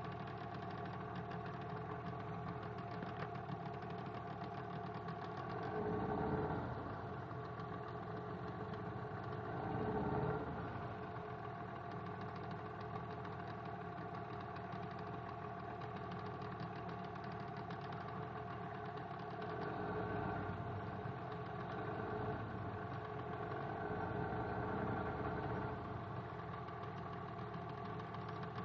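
A boat's motor running steadily as the wooden boat moves along the river, with two brief surges in loudness about six and ten seconds in.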